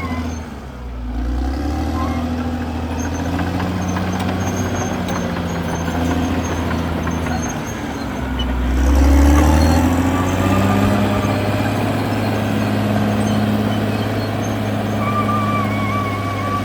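CAT D6R XL bulldozer's diesel engine running under shifting load. Its pitch changes as it works, easing off about a second in and swelling loudest near the middle.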